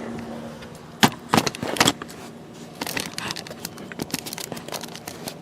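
Plastic door trim and clips clicking and knocking as a trim piece is handled and pressed into place on a pickup's interior door panel: a few sharp knocks about a second in, then lighter scattered clicks.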